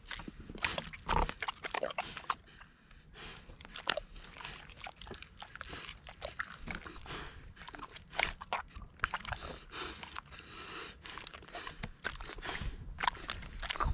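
Kune Kune pig chewing and biting bananas: a string of irregular chomping clicks and crunches.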